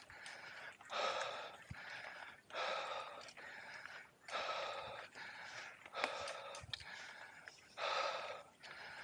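A rider breathing hard and fast into the microphone, one breath roughly every second in a steady rhythm: out of breath from a steep off-road mountain-bike climb.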